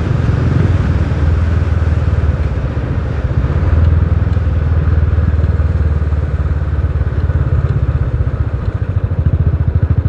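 Royal Enfield Bullet's single-cylinder four-stroke engine running steadily and loudly while the motorcycle is ridden, with a low, even pulse of exhaust beats.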